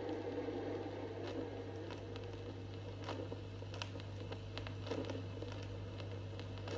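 Vinyl record surface noise in the gap between tracks: faint crackle and scattered clicks over a steady low hum.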